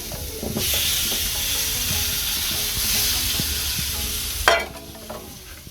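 Fat sizzling in a hot cast iron skillet, getting louder about half a second in, then cut short by a single knock near the end.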